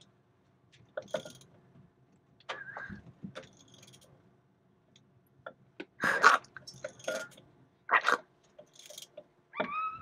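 Yanmar 4JH3-TE marine diesel being turned over by hand to clear water from its hydrolocked cylinders: scattered clicks, squelches and short noisy spurts, the two loudest a little after six seconds in and about two seconds later. Two brief gliding squeaks, one near the start and one near the end.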